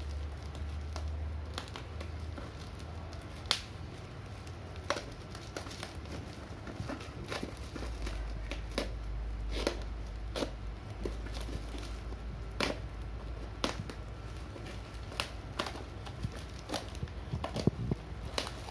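Razor blade cutting and tearing through a parcel's plastic wrapping and packing tape, with plastic crinkling and sharp irregular clicks and snaps.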